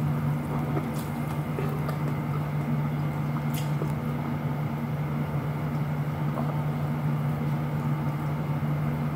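A steady low machine hum at an even level, with a few faint clicks over it.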